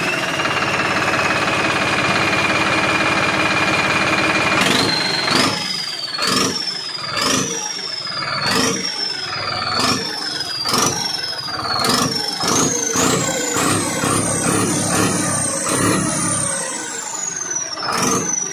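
Farmtrac 60 Supermaxx tractor's turbocharged diesel engine with a turbo modified internally to whistle more. The turbo whistles steadily at idle, then the engine is blipped about once a second, each blip sending the whistle up and letting it sag, the pitch climbing higher as the blips quicken; after the last blip the whistle winds down in a long falling glide.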